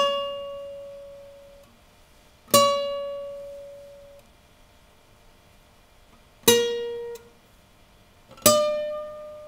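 Guitar plucked four times, one high single note each time, each note ringing out and dying away within a second or two.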